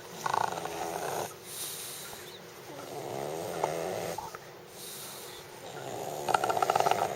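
English bulldog snoring in its sleep: three long snores a couple of seconds apart, the last one the loudest with a rapid rattle.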